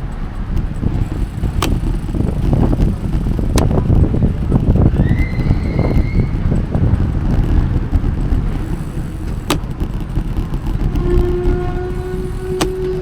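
Road traffic on a city street with a constant low rumble and a few sharp clicks. About five seconds in there is a short high squeal, and near the end a steady pitched tone sounds for a couple of seconds.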